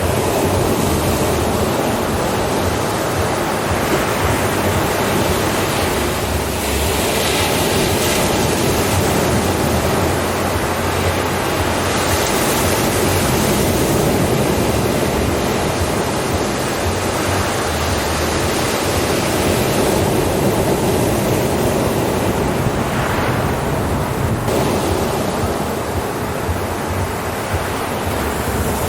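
Ocean surf: a continuous wash of breaking waves, with the hiss swelling a few times as waves break and run in.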